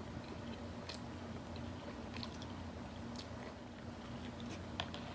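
Close-miked chewing: scattered soft, wet mouth clicks of a person eating, over a faint steady hum.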